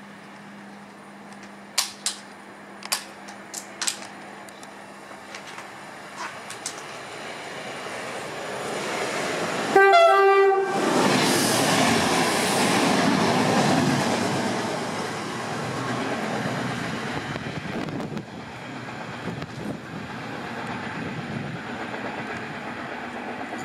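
SN84 diesel railcar giving one horn blast of about a second, the Rp1 'attention' signal, as it reaches the platform, then the rush and wheel clatter of the train passing at speed, slowly fading as it moves away. A few sharp clicks sound in the first seconds.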